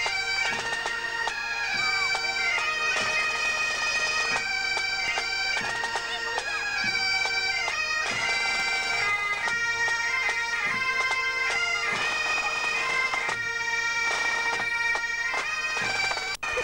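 Pipe band playing: Highland bagpipes sound a melody over their steady drones, with drums beating along. The sound cuts out briefly near the end.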